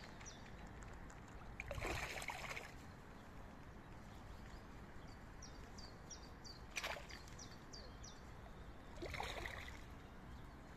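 Spawning crucian carp splashing and thrashing at the surface of a shallow pond, in two bursts about two seconds in and about nine seconds in. A steady outdoor hiss lies underneath, with a sharp click near seven seconds and a run of short, high, falling chirps in the middle.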